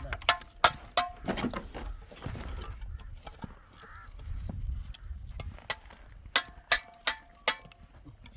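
Chopping: a run of sharp knocks, a few a second, many with a short ringing note after the blow, pausing for a few seconds in the middle and then going on.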